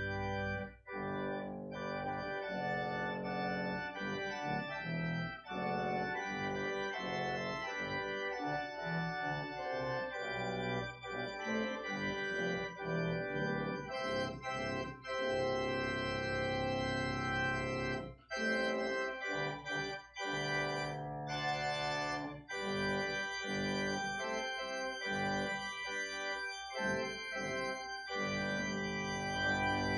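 Organ playing an instrumental piece: held chords that move every second or so, with a few short breaks between phrases.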